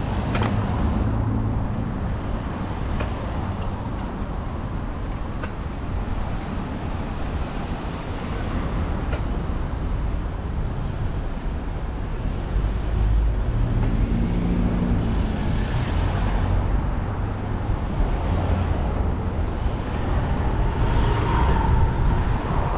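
Street traffic heard from a moving bicycle: passing cars' engines and tyres over a steady low rumble on the action camera's microphone. A brief whine comes in near the end.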